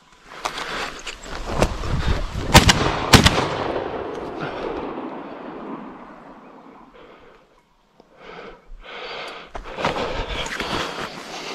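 Two shotgun shots a little over half a second apart, the loudest sounds, then a slowly fading noise that dies away over several seconds. Later comes a rustling of leaves and branches as someone pushes through dense shrubs.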